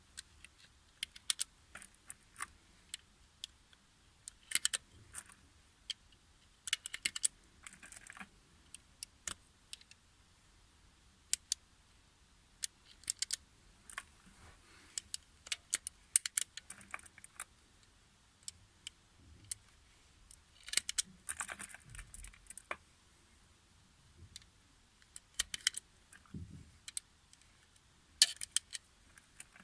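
9x19 mm cartridges being pressed one at a time into a Glock pistol magazine: irregular sharp clicks and short clusters of metallic clicks and rattles, with pauses between rounds.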